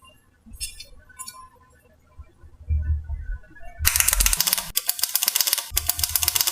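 Dense, rapid crackling clicks that start about four seconds in and break off briefly near the end, after a few low thuds.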